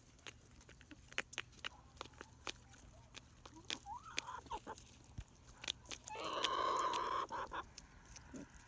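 Pullets pecking feed from a hand-held plastic tray, their beaks tapping sharply and irregularly. One hen gives a short rising call about four seconds in and a louder, drawn-out squawk lasting about a second and a half a little after six seconds.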